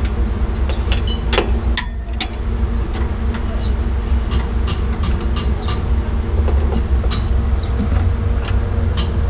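Metal wrench clicking against a bolt on a truck chassis as it is turned and refitted, short sharp clicks coming about three a second through the middle, over a steady low rumble and hum.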